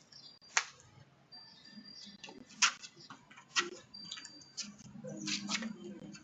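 A few sharp clicks at irregular intervals, five or so over six seconds, over faint background noise, with brief thin high tones between them.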